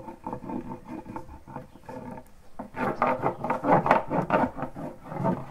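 A hand rubbing bait back and forth on the inside wall of a wooden top-bar beehive box: a rapid series of rough scraping strokes on the wood. The strokes get louder and faster about halfway through, and there is a sharp knock at the very start.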